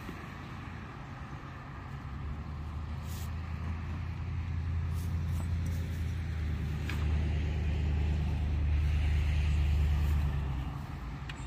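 Low engine hum of a passing motor vehicle, building over several seconds, then dropping away near the end.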